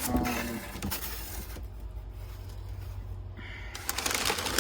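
Packing paper and plastic wrapping rustling and crinkling as they are handled, starting about three and a half seconds in, over a low steady hum.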